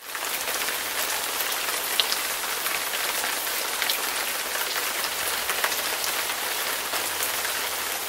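Steady rain falling: a dense, even hiss with scattered sharper drop hits.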